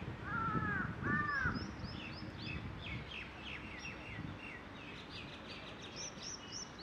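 Jungle crow (large-billed crow) giving two caws in quick succession in the first couple of seconds. After them a small bird's rapid series of high, falling chirps runs on.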